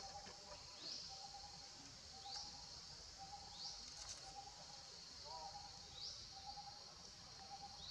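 Faint outdoor ambience of insects and birds: a steady high insect buzz, a short rising chirp every second or two, and short repeated notes lower in pitch, with a small upward call about two-thirds of the way through.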